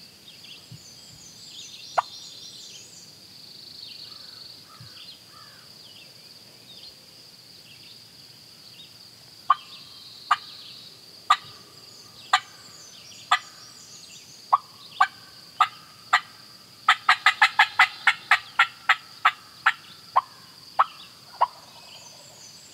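Turkey call imitating a hen: loud, sharp, clipped clucks and cutting. There is one note about two seconds in, then scattered notes from about halfway, a fast run of about eight notes a second near three-quarters through, and slower notes after it. A steady high insect buzz runs underneath.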